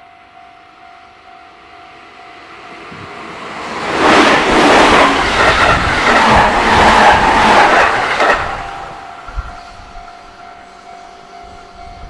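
A JR Central 313 series 8000-subseries electric train passes close by, a loud rush of wheel and rail noise with clattering over the rail joints. It builds up, is loudest from about four seconds in until just past eight, then fades. A level-crossing warning bell rings steadily throughout, about two strikes a second.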